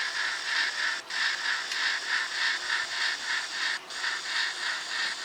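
Sound-decoder steam exhaust chuffing from an N scale EM-1 Yellowstone model locomotive, played through its tiny onboard speaker: a steady, hissy beat of about four to five chuffs a second. The sound cuts out briefly twice, about a second in and near four seconds in.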